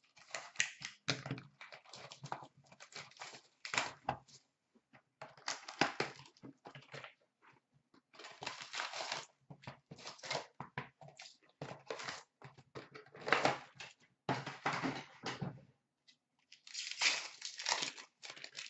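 A cardboard hobby box of 2016-17 Upper Deck SP Authentic hockey cards is torn open and its foil packs are pulled out by hand. The tearing, crinkling and rustling come in irregular bursts with short pauses.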